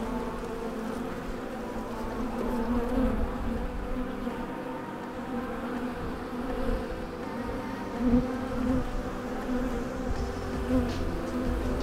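Honeybees buzzing around the hive entrance, a steady hum of many wingbeats with individual bees' pitches wavering as they fly close past. A newly installed nuc colony, active at its entrance.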